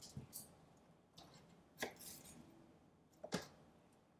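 Kitchen knife slicing a yellow bell pepper on a plastic cutting board: a few separate, quiet cuts, each ending in a tap of the blade on the board.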